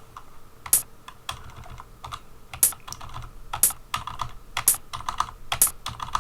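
Computer keyboard keys being tapped: a string of sharp clicks, with louder strikes about once a second and softer keypresses between.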